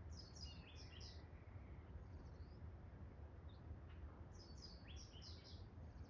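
Small songbird twittering faintly: a quick run of high chirps at the start, a few weak notes around the middle, and another run of chirps about four seconds in, over a low steady background rumble.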